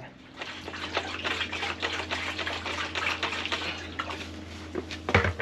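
Gurgling, crackling liquid with a steady low hum underneath: engine oil being sucked up the MityVac extractor's hose from the filler port, sputtering with air. There is a single thump near the end.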